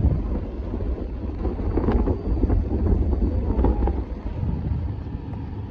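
Wind buffeting the microphone over the low rumble of a moving motorcycle.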